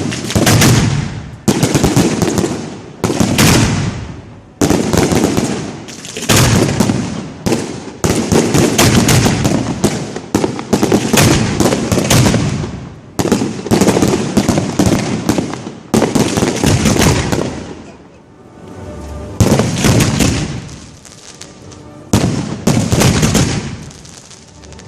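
Professional fireworks display heard at the launch site: shells firing and bursting in quick succession, a dense run of loud bangs and crackle. It eases briefly about three quarters of the way through, then picks up again.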